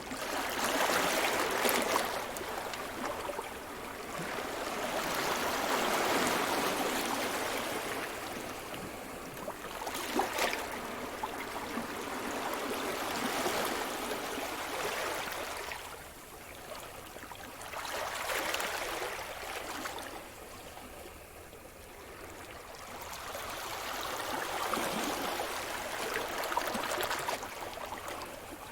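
Sea surf: waves breaking and washing up the shore one after another, the hiss of water swelling and fading every few seconds, with a few sharper splashes.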